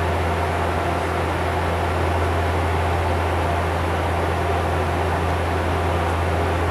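Bombardier Q400's turboprop engines and propellers droning steadily in cruise, heard inside the cockpit: a strong steady low hum with an even hiss of airflow over it.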